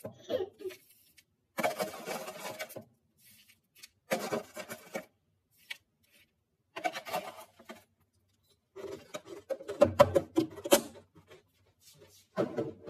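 Dry granola clusters tipped and spooned from a plastic tub into a plastic food container: crunchy rattling and scraping in about five short bursts, the loudest about ten seconds in.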